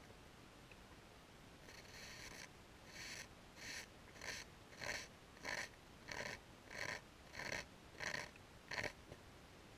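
A run of about a dozen crunching strokes, roughly two-thirds of a second apart, growing louder over the first few and then stopping abruptly.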